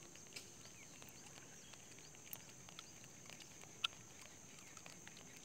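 Faint outdoor ambience: a steady high-pitched hum with scattered faint ticks, and one sharper click about four seconds in.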